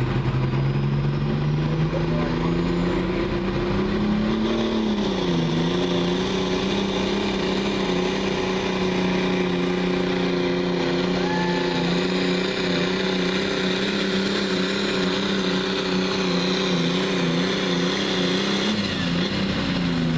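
Limited Prostock pulling tractor's turbocharged diesel engine at full power under load during a pull. It revs up over the first few seconds, dips briefly about five seconds in, then holds steady before falling off near the end, with a high whine rising and falling along with it.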